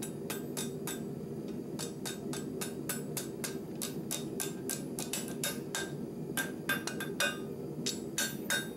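Hand hammer striking red-hot 3/8-inch rebar on a steel anvil block, a fast run of blows, about three or four a second, as the hot end is bent into a 90-degree angle. Several of the later blows ring briefly. A steady low hum runs underneath.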